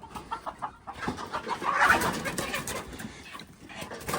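Chickens clucking, many short calls overlapping, loudest about halfway through.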